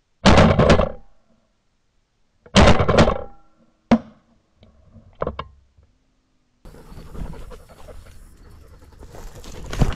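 Two shotgun shots about two seconds apart, each ringing off for most of a second, followed by a single sharp click.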